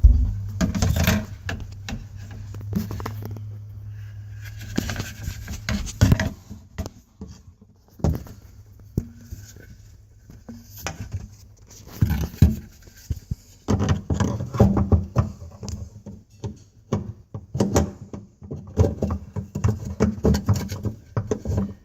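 Irregular knocking, scraping and clattering as things are handled and shifted inside the cabinet under a sink, with a busier run of knocks in the second half.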